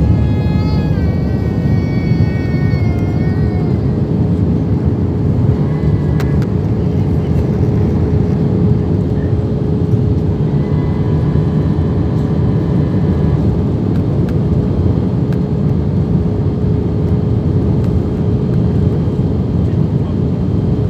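Steady engine and airflow noise inside an airliner cabin during the descent, with a constant hum tone under it. A voice comes through briefly near the start and again faintly around the middle.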